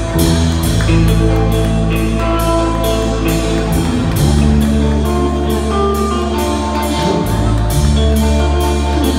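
Band music: a drum kit keeps a steady beat over sustained bass notes.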